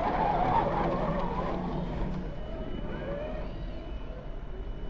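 Electric motors and geared drivetrains of radio-controlled scale crawler trucks whining as they climb a sand slope, the pitch wavering up and down with the throttle.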